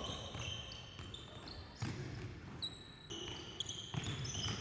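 Basketball bouncing on a gym floor as it is dribbled, with sneakers squeaking in short high chirps as players cut and stop.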